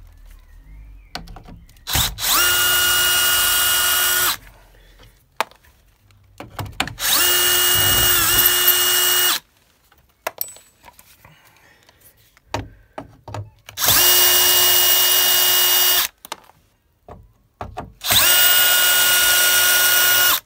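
DeWalt DCS355N cordless oscillating multi-tool cutting in four separate bursts of about two seconds each, its steady high whine dipping briefly under load in the second burst. Handling clicks and knocks come between the bursts.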